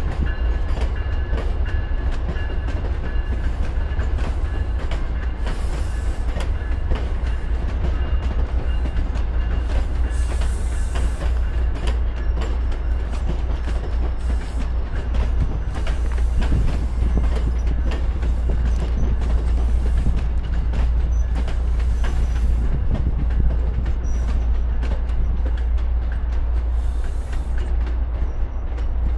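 Passenger train moving over the station tracks: a steady low rumble with wheels clicking irregularly over rail joints and switches, and a faint high steady whine in the first few seconds.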